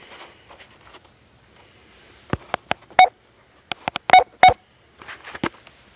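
A series of sharp metallic clicks and clinks, about ten over three seconds, a few with a short ring: tools being handled and set against the steel tool box drawer.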